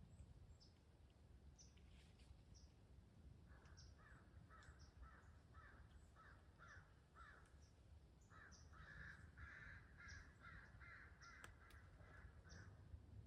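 Crow cawing faintly in two runs of rapid caws, about two a second, the first starting a few seconds in and the second after a short pause. Faint high chirps of small birds are scattered throughout over a low rumble.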